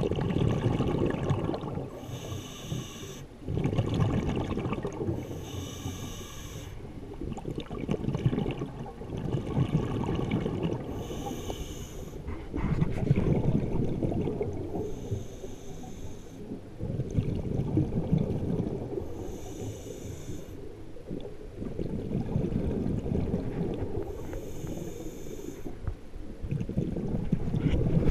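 A scuba diver breathing underwater through a regulator: about six breath cycles, each a short hiss as the regulator delivers air, followed by a longer low rumble of exhaled bubbles.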